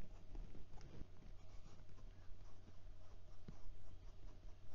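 A TWSBI Diamond 580 fountain pen's broad steel nib writing letters on Clairefontaine 90 gsm paper, in quick, irregular light strokes with small ticks. The nib is ultra smooth and gives only a soft scratch.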